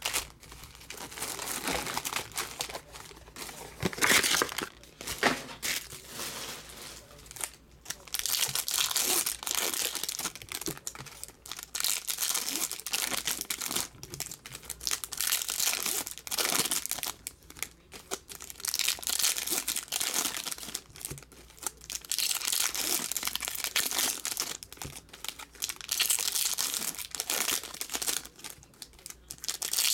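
Foil trading-card pack wrappers being torn open and crinkled by hand, in repeated irregular bursts of crackling rustle.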